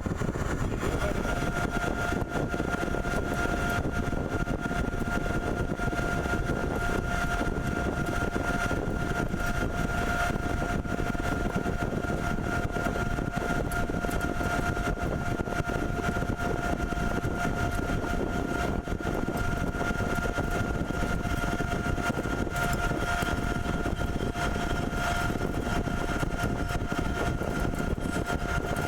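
CNC pipe threading machine running steadily: constant mechanical noise with a high whine in two steady tones, the lower tone coming in about a second in.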